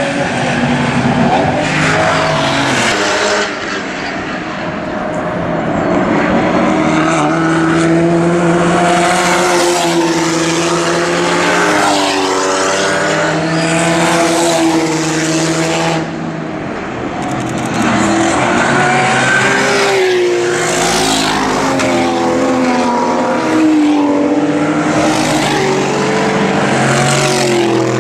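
Racing cars passing one after another through a corner, their engines revving up and dropping back with gear changes. The sound dips briefly twice, about a third and about halfway through, before the next cars arrive.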